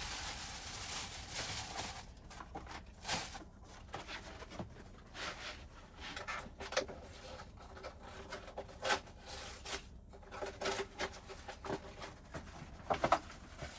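Plastic-wrapped frozen microwave pizza being unwrapped and handled: irregular crinkling, rustling and small clicks and knocks.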